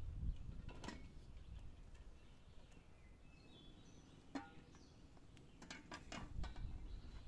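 Aluminium cooking pot and its lid being handled: a knock as the pot is settled on the stove grate, a single ringing metal clink about four seconds in as the lid is lifted, and a cluster of light knocks near the end. A low steady outdoor rumble lies underneath.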